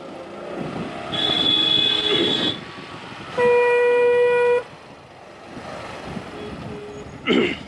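Vehicle horns honking in slow, dense road traffic: a higher-pitched honk about a second in, then a loud, steady single-note horn held for about a second around three and a half seconds in, over the hum of engines and traffic.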